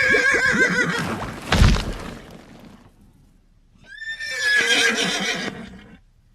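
A pony whinnying in distress with a wavering, shaky call, cut by a heavy low thump about a second and a half in; after a short silence a second long, high whinny rises about four seconds in and fades. It is a sound effect of a pony drowning in a marsh.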